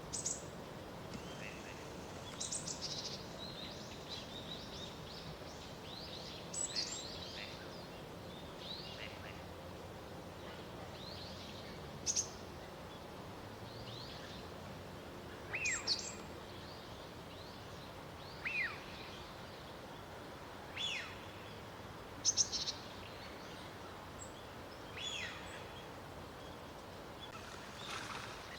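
Gadwall calling: short, high calls, some sliding downward, repeated every two to three seconds over steady outdoor background noise.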